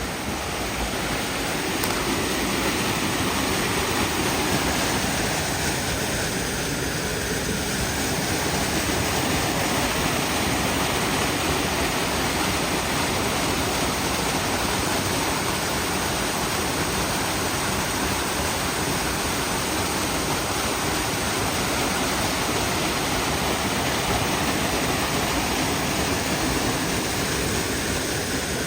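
Steady, loud rush of a waterfall.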